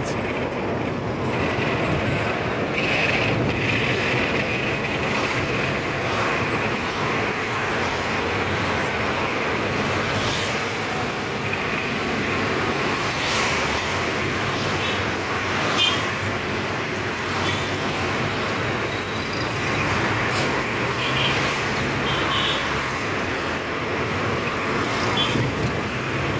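Steady road traffic noise from a car driving along: an even rush of engine and tyre noise with surrounding traffic.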